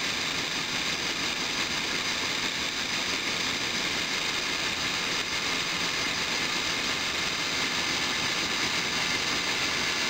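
Electric drill running steadily under light pressure, its 3/16-inch bit grinding slowly through the tough ceramic body of a water heater thermostat.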